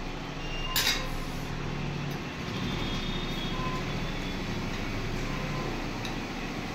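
Forks and spoons clinking and scraping on steel plates while children eat, with one sharp clink about a second in, over a steady low background hum.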